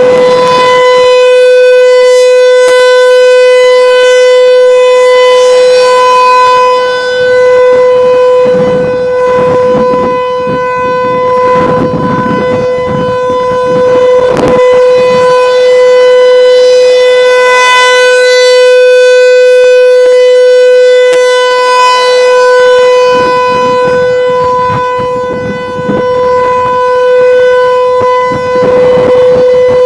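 American Signal Tornado T-128 rotating outdoor warning siren sounding its steady single tone during a monthly test. The tone is very loud and holds one pitch, swelling and fading a few times as the rotating head turns toward and away.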